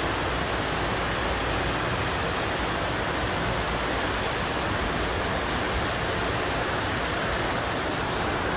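Heavy rainstorm: an unbroken rushing hiss of pouring rain.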